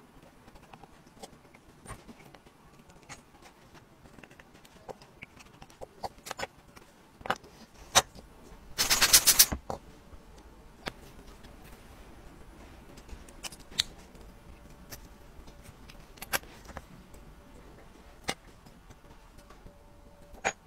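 Small metallic clicks and taps of steel tweezers and tiny watch parts (screws, rotor, case back) being handled and set down on a hard work surface while a wristwatch is taken apart. About nine seconds in there is a brief, louder run of rapid clicks.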